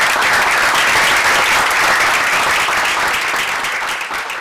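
Audience applauding: steady, dense clapping that begins to thin out near the end.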